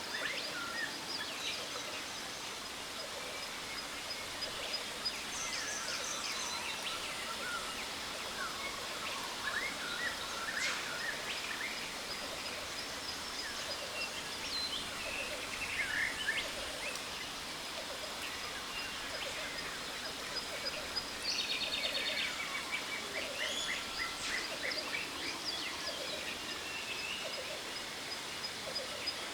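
Jungle ambience: many birds whistling and trilling over the steady rush of a waterfall, with a fast trilling call standing out about two thirds of the way through.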